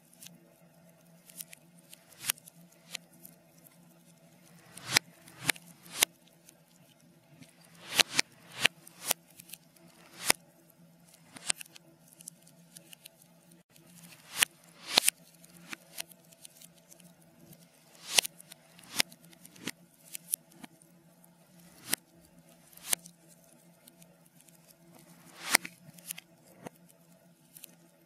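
Log fire crackling, played in reverse: irregular pops and snaps that swell up and then cut off sharply instead of dying away. A faint steady hum runs underneath.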